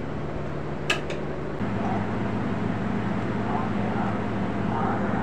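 Steady low background hum with faint, distant voices and a single sharp click about a second in.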